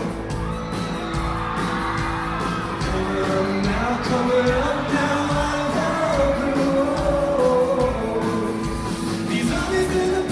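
A live band with a lead singer performing a pop-rock song, with long held sung notes over a steady beat, recorded from among the concert audience.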